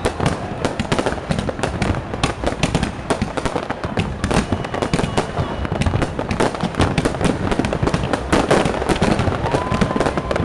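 Aerial fireworks display: a dense, continuous barrage of bangs and crackles from bursting shells. A thin whistle sounds about halfway through, and another rises and holds near the end.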